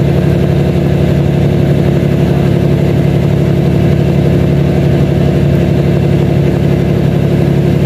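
Fishing trawler's engine running steadily at a constant speed, an even low drone that does not change.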